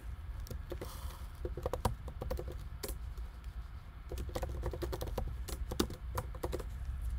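Typing on a computer keyboard: irregular runs of key clicks, over a low steady hum.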